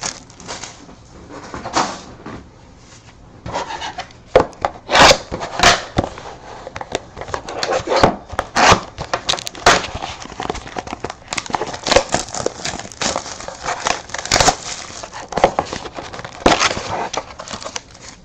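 Trading card packs being pulled out of cardboard boxes and handled: irregular rustling and crinkling of wrappers and cardboard with sharp taps and knocks.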